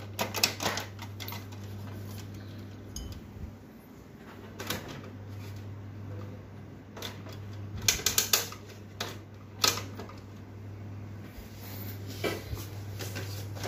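Irregular plastic clicks and knocks from an HP LaserJet Pro MFP M227fdn laser printer being handled and powered up, over a steady low hum. The clicks come in small clusters, the loudest about two-thirds of the way through.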